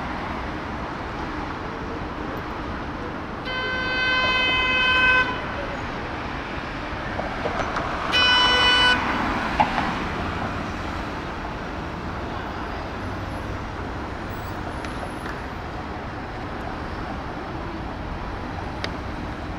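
Downtown street traffic with cars passing, and a car horn honking twice: a long honk of nearly two seconds about three and a half seconds in, then a shorter, louder honk about eight seconds in.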